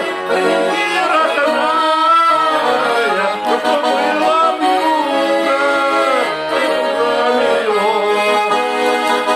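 Accordion music: a melody of held, gently wavering notes over chords.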